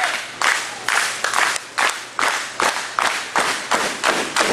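Crowd clapping in unison in a steady rhythm, about two claps a second, echoing in a large hall.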